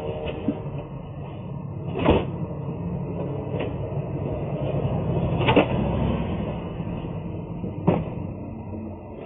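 Cardboard boxes being handled and set down in a truck's cargo area: three knocks over a steady low rumble.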